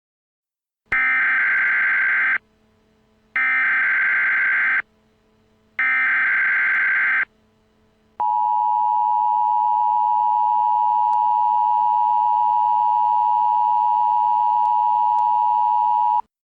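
Emergency Alert System signals. Three identical bursts of screeching digital data (the SAME header), each about a second and a half long with short gaps, are followed by the steady two-tone EAS attention signal, held for about eight seconds before it cuts off.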